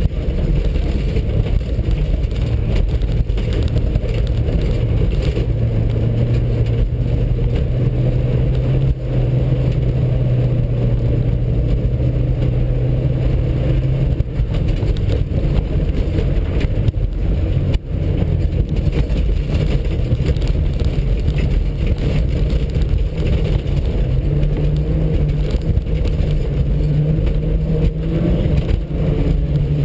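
VW Passat 2.0-litre engine heard from inside the cabin, pulling hard along a dirt autocross track. The engine note holds steady, fades back in the middle and climbs again near the end, with a few sharp knocks from the rough surface.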